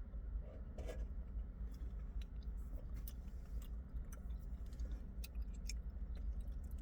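Close-up chewing and mouth sounds of food being eaten, with scattered small wet clicks and crunches over a steady low hum.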